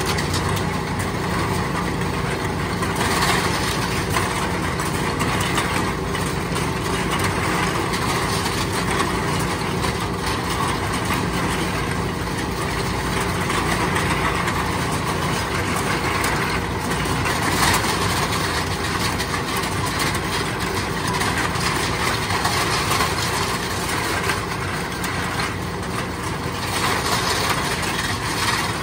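Aluminum can crusher (densifier) running steadily: a constant motor hum under a dense clatter of cans being fed through and crushed.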